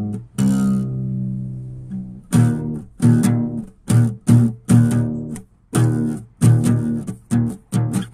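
Background music of short plucked chords, struck about twice a second in a choppy rhythm, with one longer held chord about half a second in.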